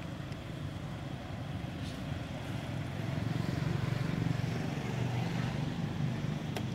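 A steady low engine hum, with a short sharp click near the end.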